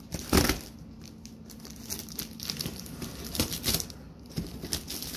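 A box cutter slicing through plastic stretch wrap and cardboard, in irregular crinkling, tearing bursts. Under it runs a faint steady low hum from a basement sump pump.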